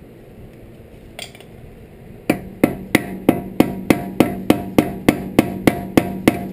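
Hammer striking a tool held against the CV axle nut on a car's front hub, staking the nut. After a faint knock, the blows start about two seconds in and come evenly, about three a second, each with a short ring.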